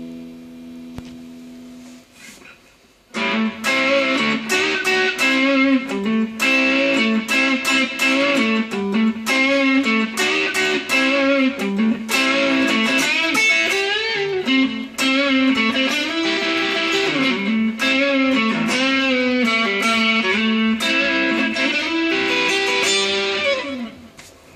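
Epiphone Sheraton semi-hollow electric guitar on its neck pickup, played through a LoveDrive overdrive pedal (a Zendrive clone). A chord rings out and fades over the first two seconds. Then a single-note lead melody with bent notes runs for about twenty seconds and stops shortly before the end.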